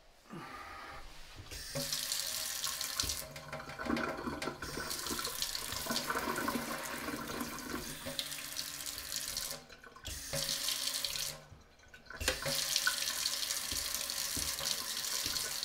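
Kitchen faucet running a thin stream into a stainless steel sink, turned on just after the start and shut off briefly twice as the handle is worked. The flow is weak, which the owner puts down to lime clogging the faucet head.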